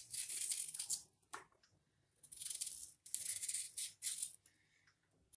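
Small knife peeling the thick skin off a raw green banana: several short rasping scrapes with pauses between them as the peel is stripped away.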